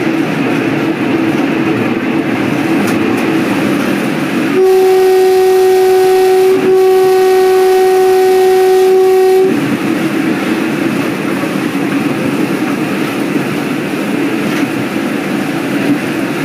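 Train running along the track with a steady rumble. About four and a half seconds in, the horn sounds one long, single-pitched blast of about five seconds, with a momentary dip partway through, then the running noise carries on alone.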